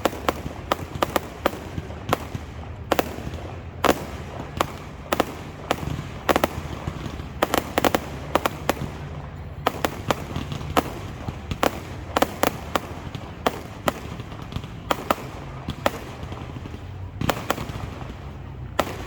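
Fireworks going off in a rapid, irregular barrage of sharp bangs and crackling clusters, with a steady low rumble underneath.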